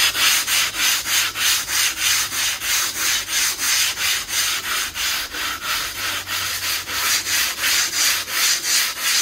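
80-grit sandpaper on a wooden block scraping back and forth over a dried refractory mortar coating on kiln firebrick, in regular strokes about three a second, to sand the coating flush down to the brick.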